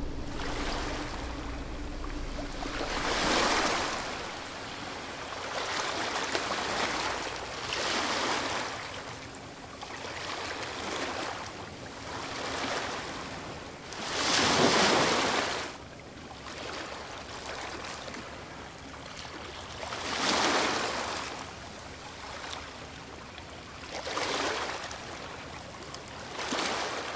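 Sea waves washing in on a shore, a surge of surf every few seconds that swells and fades away, the biggest about halfway through.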